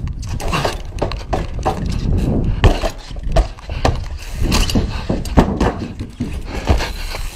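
Mountain bike tyres and frame knocking and clattering over a wooden ramp and the sheet-metal body of a parked car, a string of hard thuds with the heaviest about two and a half and five and a half seconds in, over a low rumble of rolling and wind on the helmet camera.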